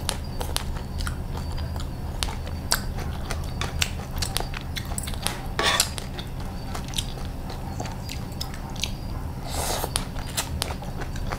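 Close-miked eating: chewing crunchy pan-fried rice-flour cake with egg and shredded green papaya, with many sharp crunches and clicks. A longer slurp as strands are drawn in comes about ten seconds in.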